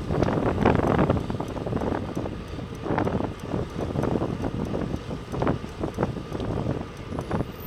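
Wind buffeting the microphone of a camera on a moving bicycle, in uneven gusts, with traffic underneath.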